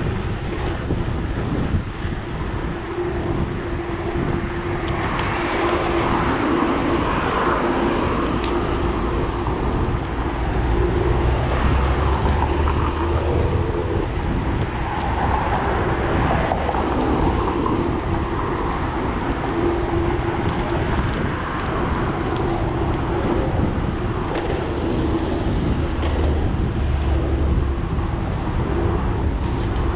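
Riding noise from a mountain bike on a paved city bike lane: a steady rush of wind and tyres rolling on pavement, with car traffic passing on the road alongside.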